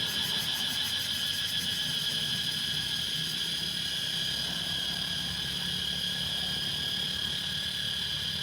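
Cicadas droning in a steady high-pitched chorus, with a fast pulsing trill on top that fades out about three seconds in.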